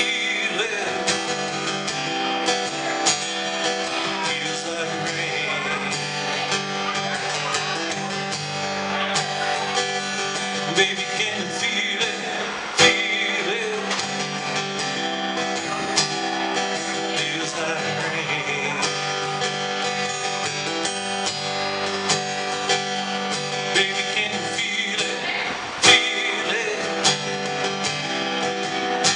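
Steel-string acoustic guitar strummed steadily, with sustained melodic notes carried over it and no sung lyrics. A couple of sharper accented strikes stand out, about halfway and near the end.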